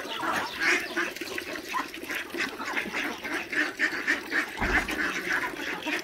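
A flock of farmyard fowl calling, many short overlapping calls at once, with a brief low bump about four and a half seconds in.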